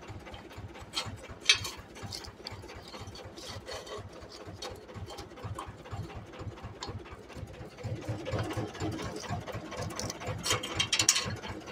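Ursus tractor's diesel engine idling with a steady rapid chugging, while metal hitch parts clank as a hay tedder is set up on the linkage. One sharp metal knock about a second and a half in, and a burst of clattering near the end.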